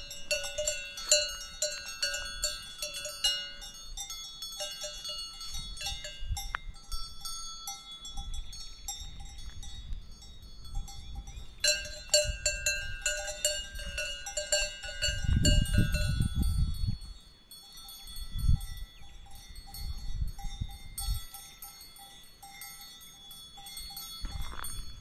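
Several livestock bells clanking irregularly and overlapping, as animals wearing them move about. The ringing is busiest at the start and again about twelve seconds in. A low rumbling comes about fifteen seconds in and in shorter bursts after.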